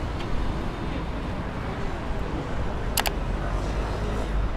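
Outdoor city ambience: a steady low rumble of traffic with faint distant voices, and a sharp double click about three seconds in.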